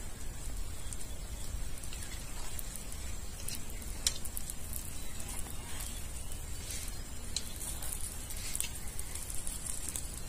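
Whole catla fish grilling on a wire mesh over charcoal: irregular crackles and pops from the coals and the fish's juices over a faint steady sizzle.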